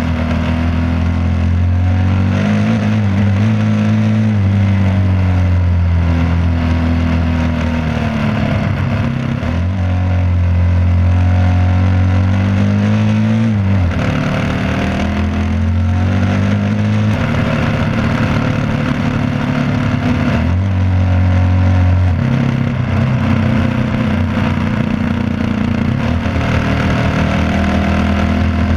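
Yamaha WR250R's single-cylinder four-stroke engine running under way on a gravel road, its pitch dipping and stepping up several times with throttle and gear changes, over a steady rush of wind noise.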